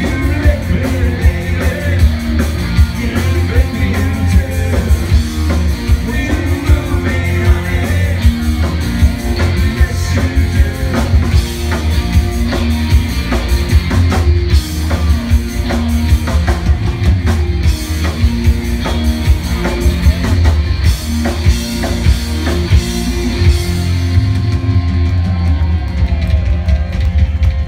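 Live rock band playing at full volume: drum kit keeping a steady beat under bass and electric guitar.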